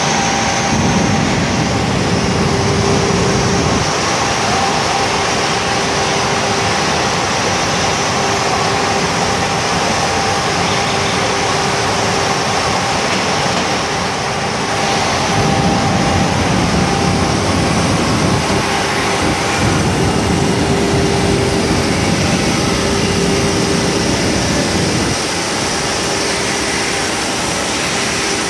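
CNC diamond edge-grinding machine for car glass running its cycle: a steady spindle whine over a loud, even grinding and machinery noise, the low rumble swelling for spells of several seconds.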